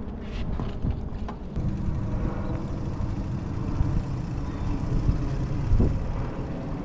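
Low rumbling with a few soft knocks as a heavy e-bike is handled and lifted onto a hitch-mounted bike rack.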